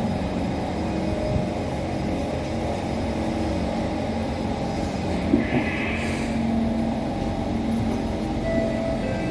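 Kawasaki C151 metro train's permanent-magnet traction motors whining with several steady tones over the low rumble of the car, heard inside the carriage by a door. A brief higher-pitched sound rises over it about five seconds in.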